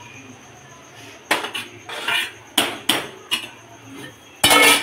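Metal cookware and utensils knocking and clattering in a kitchen. There are several separate sharp knocks, then a louder, longer clatter near the end.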